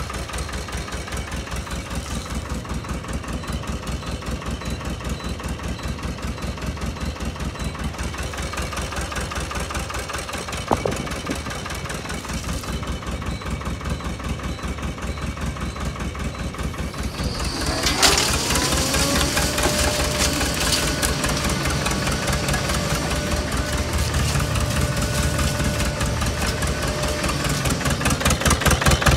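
Engine of an Epoke salt and sand spreader running steadily at idle. About two-thirds of the way through, a drive starts up with a rising whine that levels off into a steady tone, joined by a hiss, and the whole sound gets a little louder as the spreader is set working.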